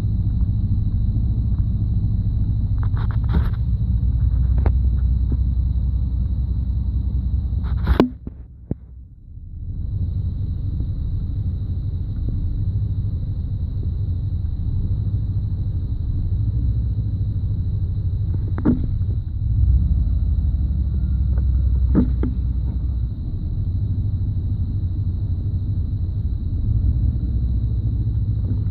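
1991 Chevy Silverado's 5.7-litre TBI V8 idling low with a random misfire: a steady rumble broken by a few sharp pops. About eight seconds in comes a loud pop, then the sound drops sharply for over a second before the idle comes back. The owner finds that spark cuts out on all cylinders at random at low idle.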